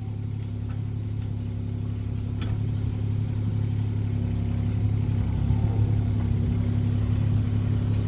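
Excavator engine running steadily under hydraulic load while the cab swings around, growing slightly louder a few seconds in.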